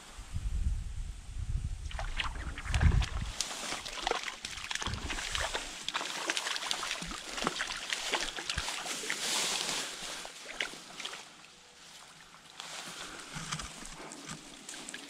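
Water sloshing and splashing in a shallow stream, a quick run of small splashes like legs wading through the current. A low rumble in the first few seconds.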